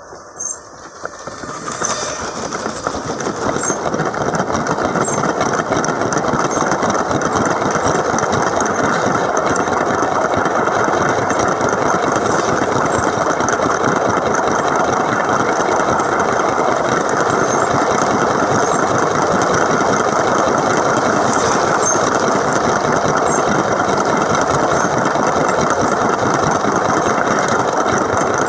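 A Lego train's small electric motor and gearing whirring as the train rolls on plastic Lego track, heard close up from on board. The sound builds over the first few seconds as the train gets up to speed, then runs steadily.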